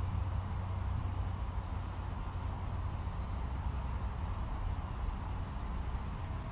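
Steady low outdoor rumble with a few faint, brief high bird chirps every couple of seconds.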